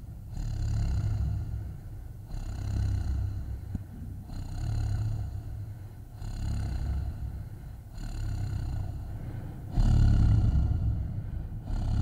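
Creepy creature foley: a low, rumbling growl with a high tonal edge, swelling and fading about every two seconds like slow breaths, loudest near the end.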